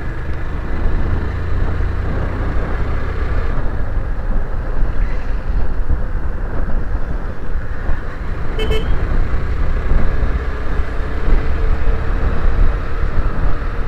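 Motorcycle riding at road speed, its engine running under a heavy wind rumble on the microphone. A short horn beep comes about eight and a half seconds in.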